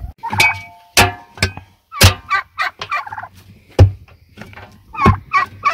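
Domestic poultry calling in a rapid series of short, loud, harsh calls.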